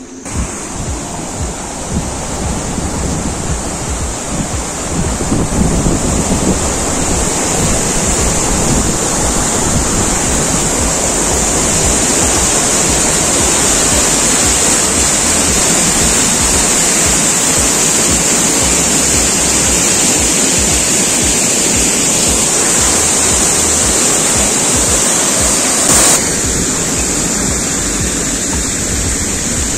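Water rushing down a lit cascade in a terraced garden, a steady, loud rush that builds over the first several seconds. A brief thump comes near the end.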